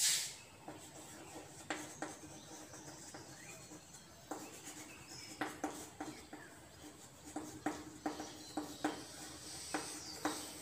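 Chalk writing on a chalkboard: irregular taps and scratches as each letter is written, with a short hiss right at the start.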